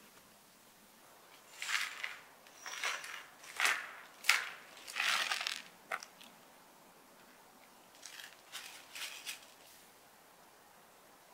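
Small steel pins and brass parts rattling and clattering as they are handled and tipped out onto a cutting mat. The clatters come in a string of short bursts, the sharpest about four seconds in, with a few softer ones near the end.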